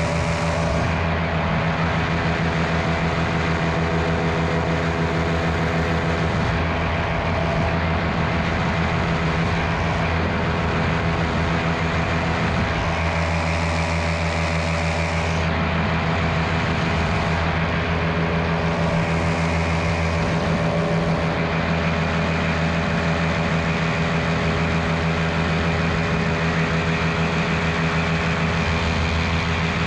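Miniplane Top 80 single-cylinder two-stroke paramotor engine and propeller running at a steady throttle.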